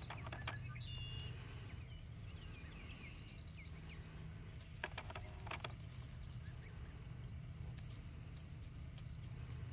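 Canada goose goslings peeping: short high whistled calls in the first second and again around three seconds in. A couple of sharp clicks come about five seconds in, over a steady low hum.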